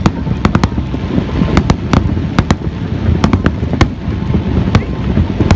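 Fireworks display: aerial shells bursting in a rapid, irregular string of about a dozen sharp bangs over a continuous rumble and crackle.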